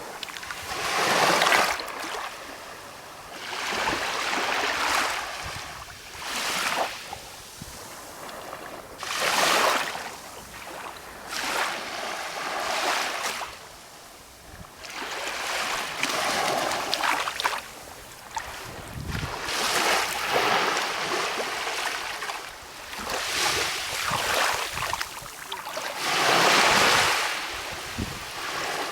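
Small waves of a calm sea washing in one after another, a hissing surge every two to three seconds that swells and falls away.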